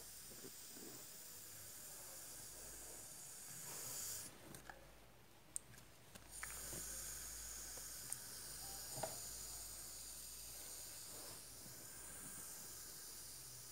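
Aerosol can of shaving foam hissing as foam is sprayed out. The hiss stops about four seconds in and starts again about two seconds later, with a few faint clicks.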